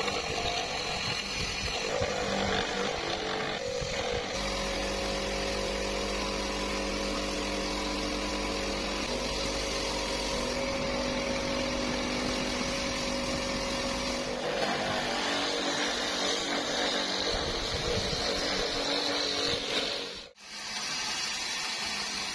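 Electric rotary carving tool with a burr bit running at a steady whine while carving wood. The sound shifts abruptly several times, with a brief dip about 20 seconds in.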